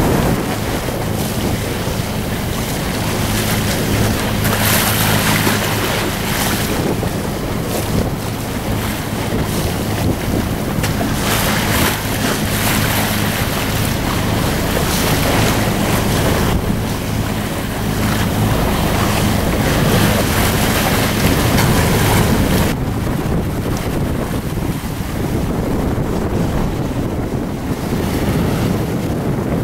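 Wind buffeting the microphone over the wash of the sea around a sailing yacht under way, swelling in gusts. A low steady hum lies underneath and stops about three-quarters of the way through.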